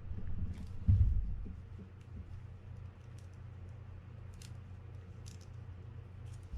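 Small sharp clicks and taps of metal reel parts and a small screwdriver being handled while a Fin-Nor Offshore 4500 spinning reel is put back together, with one low thump about a second in over a steady low hum.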